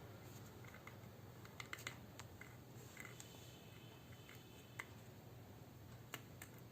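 Near silence with faint, scattered small clicks and taps over quiet room tone.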